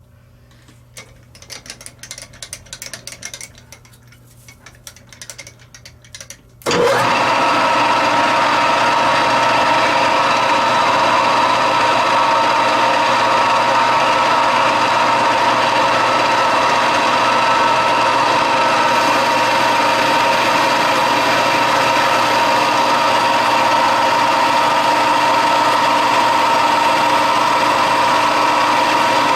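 Light clicks and rattles of handling. Then, about seven seconds in, a machine motor in the lathe setup switches on abruptly and runs steadily with a high, even hum.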